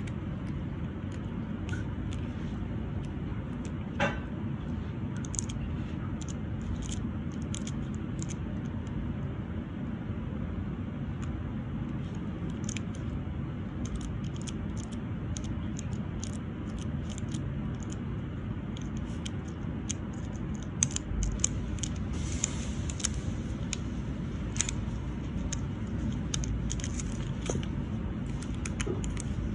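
Many small, sharp clicks and crinkles from a sheet of nail transfer foil and long acrylic nails being handled, busier in the second half, over a steady low background rumble.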